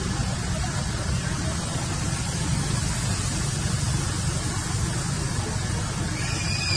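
Steady rumbling noise, strongest in the bass with a hiss above it, with a short high-pitched call that falls in pitch near the end.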